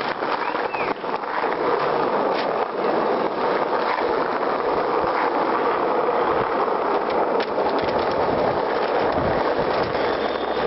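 Skateboard wheels rolling over asphalt: a steady rolling rumble that builds over the first couple of seconds, with a few sharp clicks from cracks and bumps in the road.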